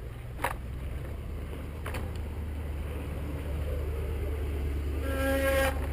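Mountain bike rolling over sandstone slickrock: a steady low rumble with two sharp knocks of the bike jolting in the first two seconds. About five seconds in, a short steady pitched tone sounds for under a second.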